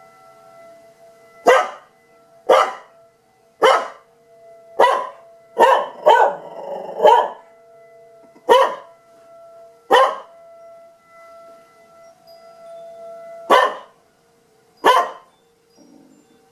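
A dog barking in single barks, about eleven in all, roughly a second apart with a longer pause past the middle, in reaction to a warning siren test. The siren's steady tone sounds faintly underneath and fades out near the end.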